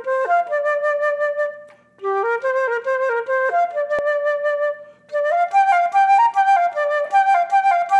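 Instrumental background music: a melody of short stepping notes played in phrases, with two brief breaks between phrases.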